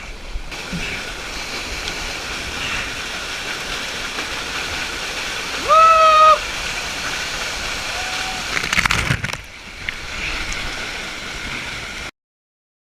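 Steady rush of waterfall water with splashing. About halfway through a person gives one short, loud, held cry, and a little later there is a burst of splashing. The sound cuts off suddenly near the end.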